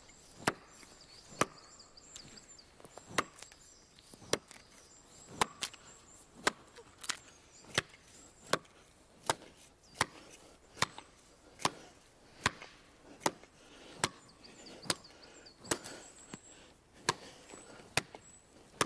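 Axe chopping a felling notch into the trunk of a dry, dead-standing Scots pine: a steady run of sharp strokes, a little over one a second.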